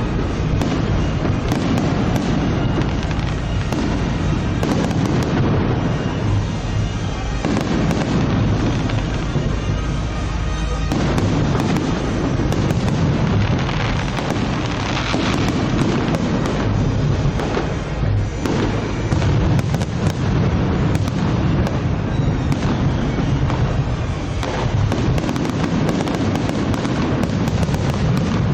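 Aerial fireworks going off in a dense, continuous barrage: rapid overlapping booms and crackles over a constant low rumble.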